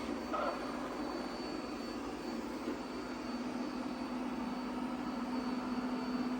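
Bissell SpinWave robot vacuum running in vacuum mode: a steady, fairly quiet motor hum with a low drone and a faint high whine.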